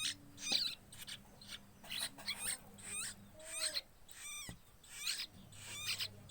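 Fledgling bird begging for food, giving rapid high-pitched cheeps in repeated bursts about once or twice a second, over a faint steady low hum.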